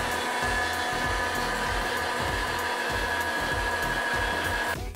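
Electric meat grinder running steadily with a motor whine while pork and garlic are pushed through its fine plate. It switches off abruptly near the end.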